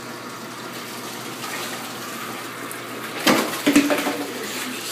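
Water running steadily into a bathtub while a wet cat is bathed, with a burst of loud splashing and scuffling about three seconds in as the cat struggles.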